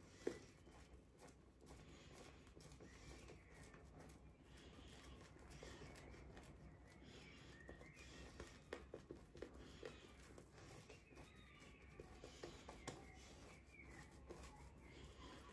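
Faint, soft scratching and crackling of a shaving brush working shaving-soap lather over the face and stubble, with a brief sharp click about a third of a second in.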